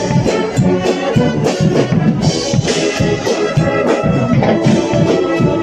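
Guggenmusik carnival band playing: trumpets and trombones blaring a tune over a steady beat of bass drum and drums.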